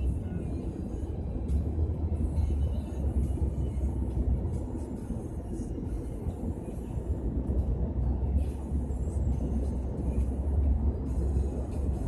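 Steady low rumble of road and engine noise inside the cabin of a moving taxi.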